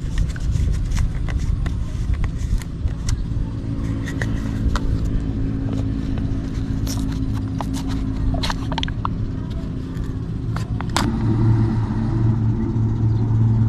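An engine running steadily, its note changing and growing louder about eleven seconds in, with scattered sharp clicks and taps from a plastic bottle being opened and handled over a sprayer tank.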